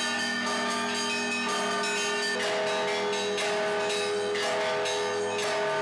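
A set of Russian Orthodox-style church bells rung by hand and foot through ropes and pedals: several bells of different pitches ring together and overlap, with new strokes about once a second.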